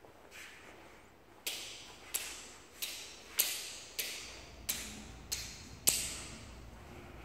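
About eight sharp clicks, evenly spaced about two-thirds of a second apart, each with a short ringing tail, as a hand at the metal frame of a PDLC smart-glass window presses its switch over and over to toggle the glass.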